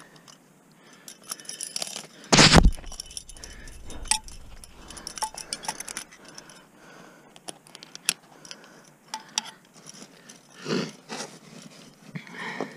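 Ice-climbing hardware clinking and jangling: carabiners, quickdraws and ice screws knocking together on the climber's harness. A single loud thump comes about two and a half seconds in, with scattered clicks and scrapes throughout.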